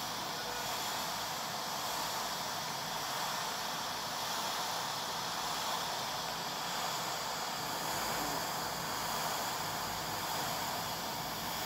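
Steady, even hiss of rushing air or noise that does not change, with no distinct events.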